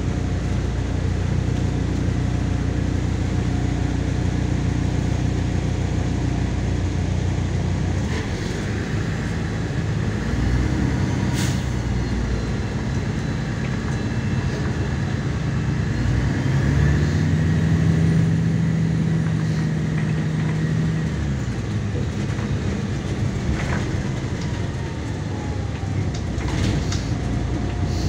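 Diesel engine of a MAZ-103 city bus running, heard from inside the passenger cabin as a steady low hum with road noise. The engine note changes about eight seconds in, a stronger steady hum holds for several seconds past the middle, and a few sharp clicks come through.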